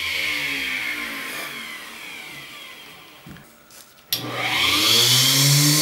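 A 4-inch mini table saw's small motor and blade winding down, the whine falling in pitch and fading away. About four seconds in it is switched on again and speeds up with a rising whine to a steady run.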